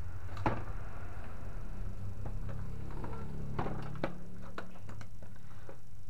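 A steady low mechanical hum with a series of sharp clicks and knocks, the loudest about half a second in and a cluster of them between three and a half and four and a half seconds in.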